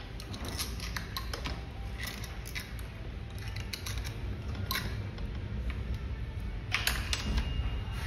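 Small metal clicks and taps of a bolt, nut and bracket being handled and fitted as an e-bike headlight is mounted on the front fork, with a sharper click about halfway through and a short cluster of clicks near the end, over a steady low hum.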